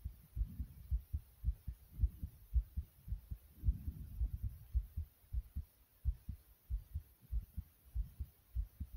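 A human heartbeat recorded close up: a quick, regular run of low thumps, close to two a second. Softer low rumbles fall between some of the beats.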